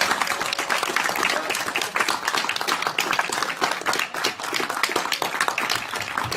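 A room full of people applauding, many hands clapping at once, in response to the confirmation that the Ingenuity Mars helicopter completed its first flight.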